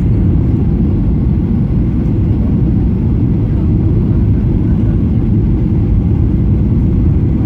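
Steady low rumble of a Boeing 737-800 airliner's engines and airflow heard inside the passenger cabin, during the descent on final approach.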